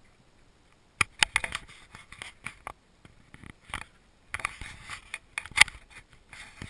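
Scratching, rubbing and small clicks of a small camera being handled right at the microphone. It is quiet for about the first second, then the clicks come irregularly, with one louder knock near the end.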